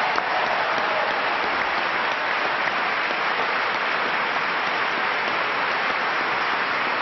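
Audience applauding steadily: dense, continuous clapping from a large crowd.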